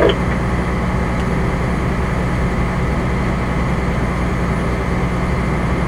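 Fire engine's engine running with a steady low drone, heard from inside the cab.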